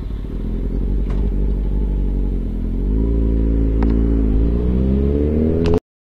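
Motorcycle engine pulling away and accelerating, its pitch rising in two steps, then cut off abruptly near the end.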